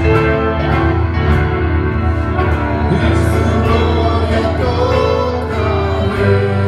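Live Spanish-language worship song: a band playing with voices singing the melody.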